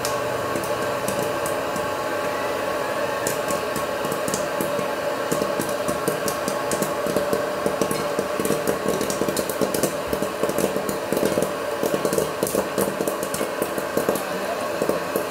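Electric hot-air popcorn popper running: its fan motor hums steadily while kernels pop in quick succession, the popping getting busier about five seconds in.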